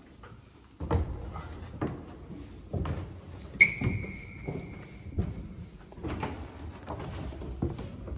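Dull thumps about once a second, and about three and a half seconds in a single sharp metallic clank that rings on for about a second and a half.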